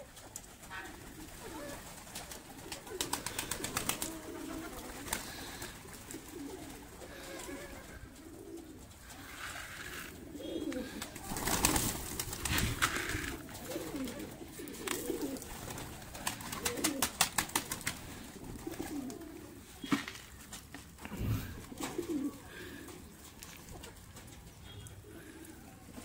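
Domestic pigeons cooing over and over in low, warbling calls. A few bursts of rapid clattering rise above them, loudest in the middle of the stretch.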